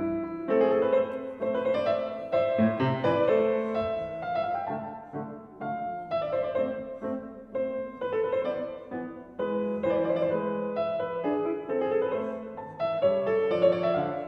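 Background piano music, a steady run of notes with no other sound standing out.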